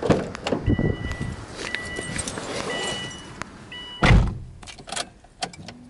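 Subaru Impreza WRX STi car door: it opens with a knock, the car's warning chime beeps about once a second, and the door shuts with a heavy thump about four seconds in. A few clicks follow, then a faint steady hum starts near the end.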